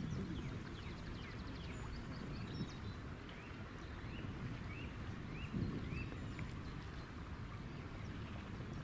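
Outdoor rumble of wind on the microphone. A small bird calls a run of about six short, evenly spaced chirps in the middle.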